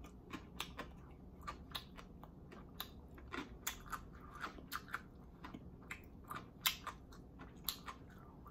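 Close-miked chewing with wet mouth clicks and smacks, several a second in an irregular rhythm.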